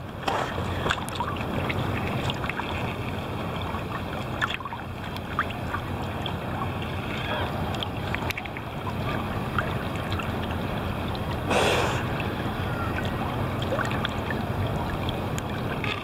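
Seawater sloshing and splashing against a camera held at the surface by a swimmer, a steady churning with scattered small splashes and one louder splash about three-quarters of the way through.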